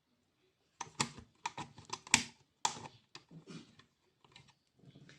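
A quick run of sharp clicks and clatter, like small hard plastic parts being handled and snapped together, starting about a second in and thinning out to softer taps.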